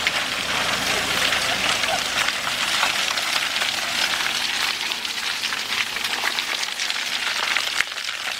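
Mitsubishi Pajero crawling slowly through deep mud, its tyres churning wet mud and stones in a dense, steady crackling hiss.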